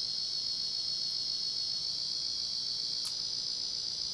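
Sound driver on the failed Inteli-Touch control board of a 1990 Casablanca Panama ceiling fan giving a constant high-pitched buzz while power is applied, a sign of a busted component on the board, probably a capacitor or transistor. A faint click comes about three seconds in.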